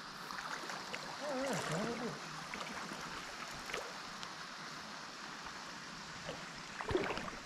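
Creek water running, a steady rushing hiss. About a second in, a faint distant voice is heard briefly.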